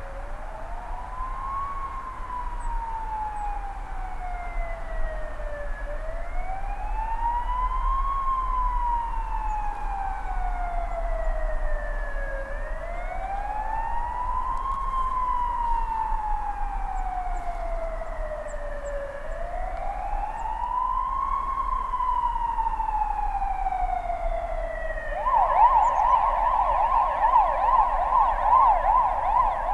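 An emergency vehicle's siren wailing, its pitch rising quickly and falling slowly four times, about six and a half seconds per cycle; about 25 seconds in it switches to a fast yelp.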